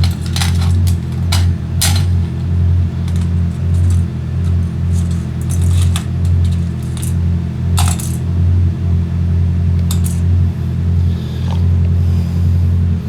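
Italjet Griffon GF125 motorcycle engine running steadily after its clogged carburetor has been cleaned, its level swelling and dipping about once a second. Sharp clicks come several times in the first two seconds and once or twice later on.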